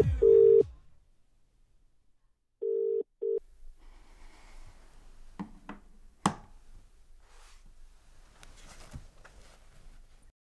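Mobile phone on speaker playing the British ringing tone of an outgoing call: one double ring right at the start, then another about three seconds in that is cut short, as the call goes unanswered. After that comes a faint street background with a few clicks and one sharp knock about six seconds in.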